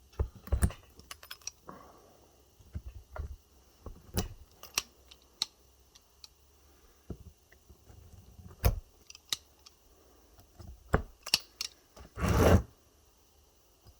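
Pliers biting and snapping at the metal connecting strips on e-bike battery cells: irregular sharp clicks and snips, with a louder noisy rasp of about half a second near the end.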